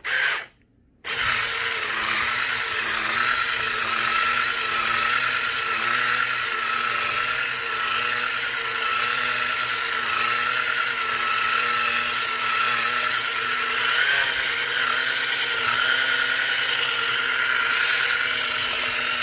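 Electric hand mixer with wire whisk beaters running steadily at low speed, beating a thick cream cheese mixture in a bowl. The motor whine is even. It cuts out for about half a second near the start, then runs on unchanged.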